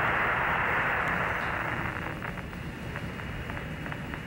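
Static hiss of the Apollo 11 air-to-ground radio channel between transmissions, softer from about two seconds in, with scattered crackles.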